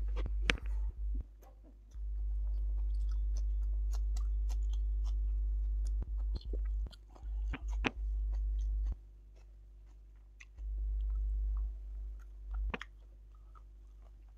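A person chewing food, with scattered short mouth clicks. Under it a deep low hum comes on and cuts out again several times.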